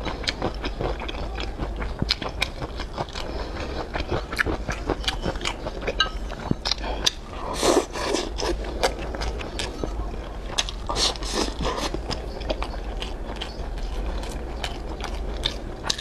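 Close-miked chewing of rice and soft braised pork belly with preserved mustard greens: irregular wet mouth clicks and smacks throughout, with a few louder smacks partway through.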